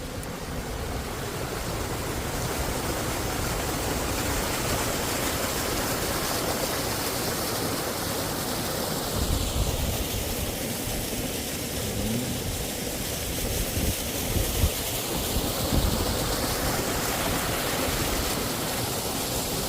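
Steady rush of water falling over a rock ledge, a small waterfall heard close by, with a few brief low thumps about halfway through and again near three-quarters of the way.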